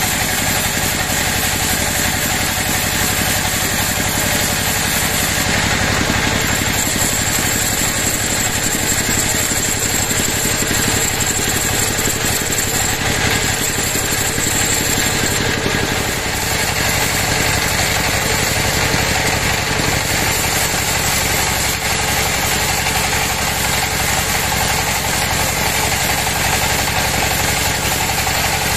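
Large band sawmill running steadily, its vertical blade ripping lengthwise through a big teak log. A high whine from the cut grows stronger for several seconds in the middle.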